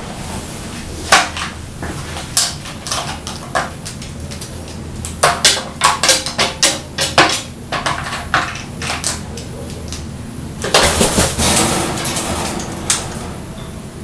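A crow pecking at and flipping the plastic lids of a slow-feeder puzzle toy on a glass tabletop: irregular sharp plastic clacks and knocks, coming thick and fast about five to seven seconds in. About eleven seconds in, a denser stretch of clatter lasting a second or so.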